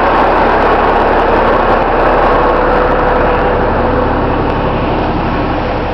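Rear-load garbage truck's engine running steadily at idle, an even mechanical drone with a faint steady hum, heard from beside the back of the truck.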